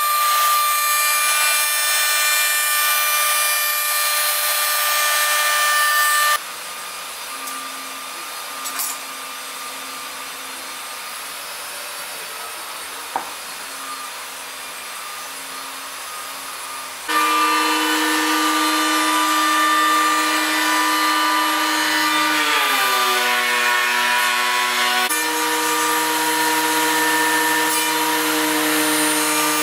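A woodworking machine's router spindle running with a steady whine as it cuts wood. The whine drops out about six seconds in to a much quieter stretch with a single click. About halfway through, a loud steady machine whine returns, and its pitch slides down for a few seconds before jumping back.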